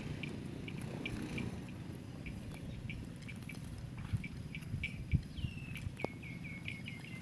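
A small bird chirping, short high notes repeated a few times a second, breaking into a falling call and a quicker run of chirps in the second half. Underneath runs a low rumble with a few soft thumps.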